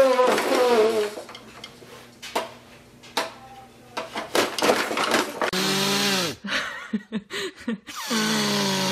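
A man blowing his nose in loud blasts, each with a low falling honk in it, about five and a half seconds in and again near the end. A baby lets out a squealing laugh at the start.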